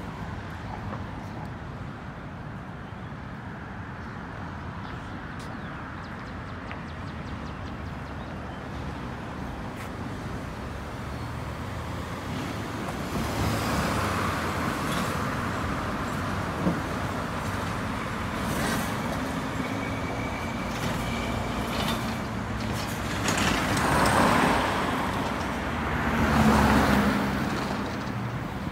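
Road traffic on a city street: a steady hum of cars, with several vehicles passing close by in the second half, each swelling up and fading away, the last two the loudest.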